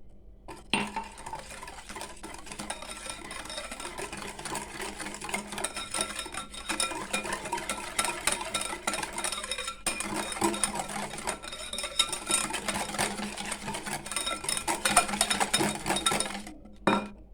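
Cake batter of egg, sugar, oil and milk being beaten in a mixing bowl, the whisk clinking and scraping against the bowl. It runs steadily and stops just before the end.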